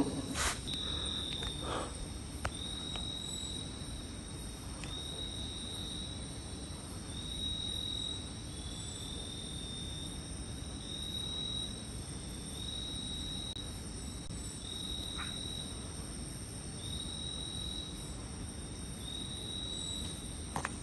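Night insects trilling in a steady high-pitched chorus. One caller repeats a long note about every one and a half to two seconds.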